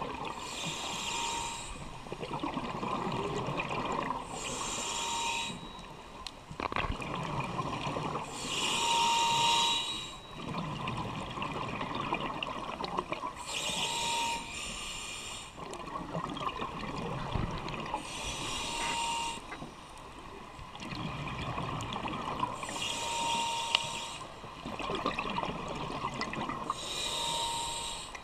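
Scuba diver breathing through a regulator underwater: a short hissing inhale about every four and a half seconds, each followed by a longer, lower rush of exhaled bubbles.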